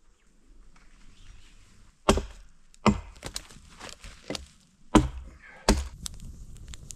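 Wood being chopped: after a quiet start, four loud, sharp chopping blows land about two to five seconds in, with smaller knocks between them.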